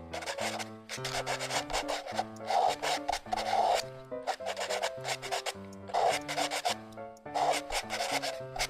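Felt-tip marker scratching on paper in quick, irregular back-and-forth strokes as it fills in solid shapes, over background music.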